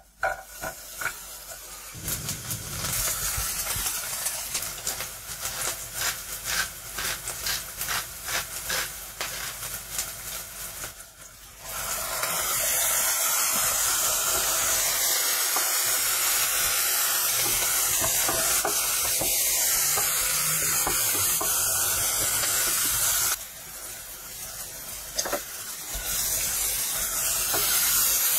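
Diced onion frying in oil in a nonstick pan, stirred with a wooden spatula. At first it crackles with many small pops, then from about twelve seconds in it turns to a loud, steady sizzle that drops back briefly a few seconds before the end.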